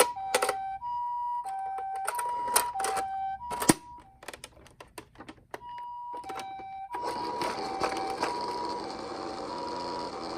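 A toy ambulance's electronic two-tone hi-lo siren alternating steadily in the Japanese "pee-poh" pattern. For the first few seconds it is mixed with sharp plastic clacks and knocks. From about seven seconds in, a continuous rattle of small plastic wheels rolling joins it.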